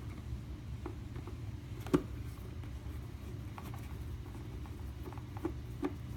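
Small scattered clicks and crinkles of a toy's plastic packaging being handled as the toy is pulled free, with one sharper click about two seconds in, over a low steady hum.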